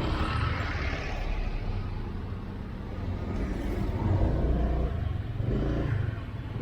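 Road traffic: the low rumble of vehicle engines, with a swell of rushing noise in the first second or so.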